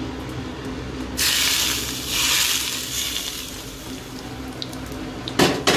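A rushing, hissing sound of liquid lasting about two seconds, then a sharp clack near the end, over a steady low hum.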